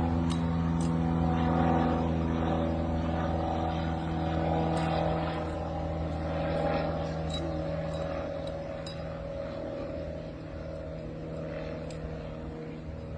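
A steady engine drone, growing slowly fainter as it dies away, with a few light clicks over it.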